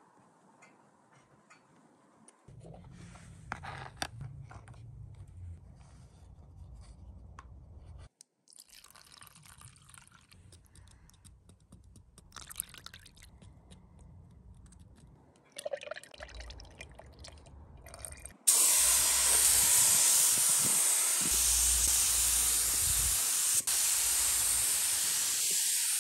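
Gravity-feed paint spray gun spraying paint onto a motorcycle fuel tank: a loud, steady hiss of air and atomised paint that starts suddenly about two-thirds of the way in. Before it, only faint knocks and scraping as paint is stirred in a plastic cup.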